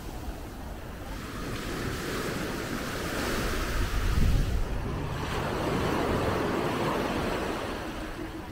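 Small ocean waves breaking and washing up the sand at the water's edge, swelling and ebbing as each one runs in. Wind buffets the microphone, with a low gust about four seconds in.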